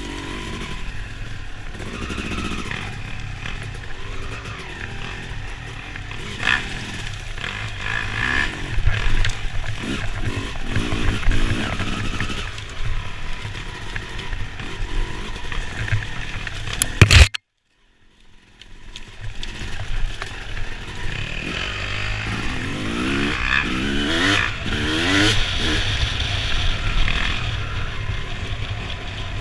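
Dirt bike engine running and revving up and down on a woods trail, with clatter from the ride. About two-thirds through, a sharp loud knock, then the sound cuts out for about a second before fading back in.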